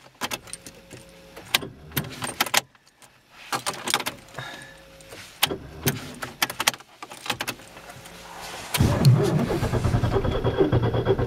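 Ignition keys clicking and jangling at the steering column. About nine seconds in, the starter motor begins cranking the 1.4 CVH engine in a steady, rhythmic churn, and the engine does not catch: a hard start at −19 °C with the engine frozen stiff.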